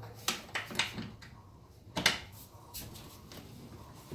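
A handful of short metallic knocks and clunks as an anti-roll (sway) bar is handled and test-fitted against a car's underside. There are three quick ones in the first second, and the loudest comes about two seconds in.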